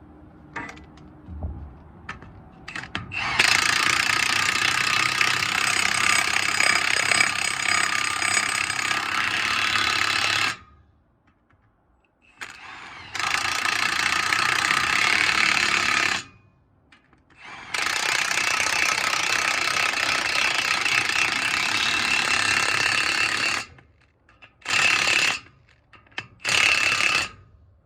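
Milwaukee Fuel brushless cordless impact wrench hammering on the knife bolts of a wood chipper, running the new knife's bolts in. It gives three long runs of several seconds each with short pauses between them, then a few short bursts near the end.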